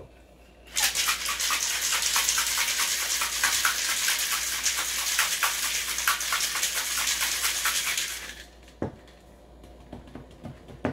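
Ice rattling and knocking inside a stainless steel cobbler cocktail shaker shaken hard for about seven seconds, with the liquid mixed in, starting about a second in and stopping near the end. A short falling squeak and a few light clicks follow as the shaker is set down and its top worked loose.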